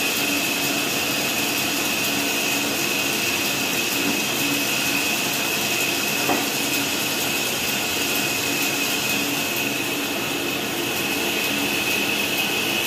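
A heavy-duty three-wheel bandsaw with 12-inch wheels running with no load: a steady whirring with a constant high whine.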